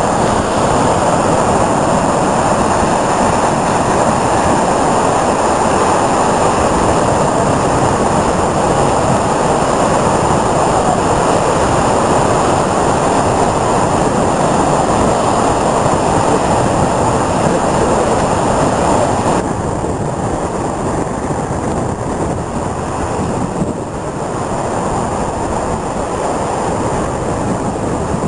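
Rough storm sea breaking against a harbour breakwater, with gusting wind on the microphone: a loud, steady rushing noise. About twenty seconds in it drops a little and sounds duller.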